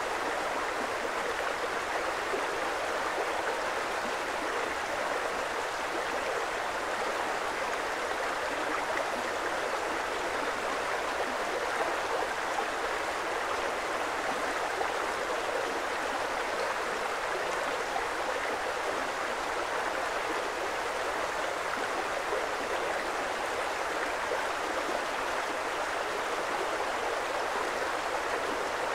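Creek water running steadily: an even rush of flowing water that holds the same level throughout, with no other sounds.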